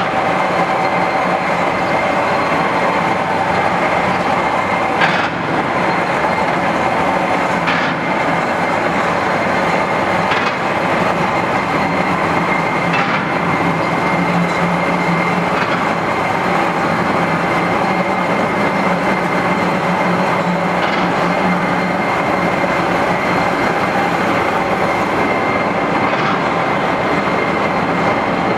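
A railway turntable turning with a steam locomotive on it: a steady mechanical drone with a thin high whine, and a faint click every two to three seconds.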